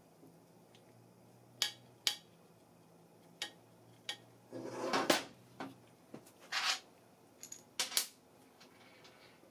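Metal parts of a Briggs & Stratton vertical engine clinking and knocking as they are handled and fitted on a workbench. The sound is a scattered series of sharp clicks, with a longer scraping rustle about halfway through and another short scrape a little later.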